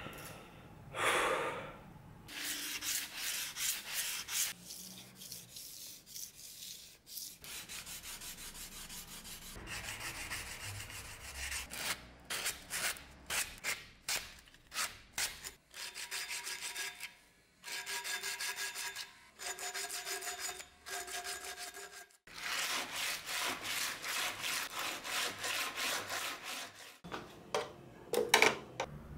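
Sandpaper rubbed by hand along the steel saw-back teeth of a survival knife blade: quick back-and-forth strokes in runs, about three a second, some with a thin ringing tone.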